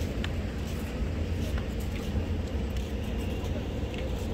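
Busy street ambience: a steady low rumble with faint voices of passers-by and a few scattered light clicks.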